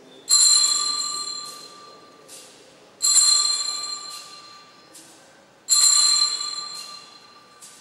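Altar bells rung three times, about two and a half seconds apart, each ring bright and high and dying away slowly with a few lighter strikes after it. This is the ringing that marks the elevation of the chalice at the consecration.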